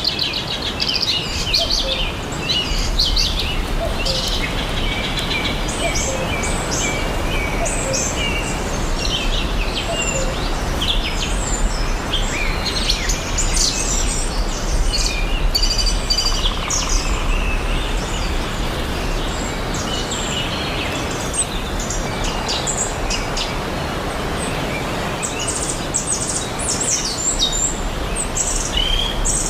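Many small birds chirping and twittering in quick, overlapping calls over a steady background noise.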